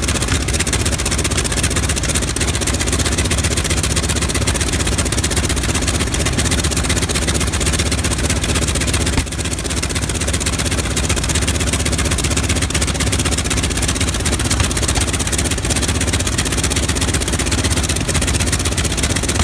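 Polikarpov I-16's nine-cylinder radial engine running steadily.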